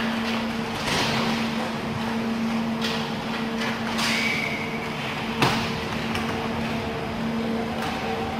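Inline roller hockey play: scattered clacks of sticks and puck and skate noise, with a sharp crack about five and a half seconds in, over a steady low electrical hum.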